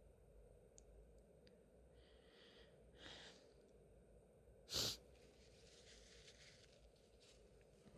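A woman's single sharp sneeze about five seconds in, after a couple of breaths in, with soft breathing after it.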